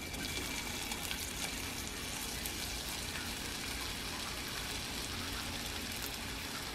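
Chopped onion frying in olive oil in a skillet: a steady sizzle full of fine crackles.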